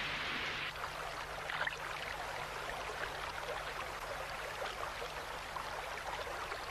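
Cartoon sound effect of a flowing stream, water babbling steadily. It takes over from a brief hiss that cuts off under a second in.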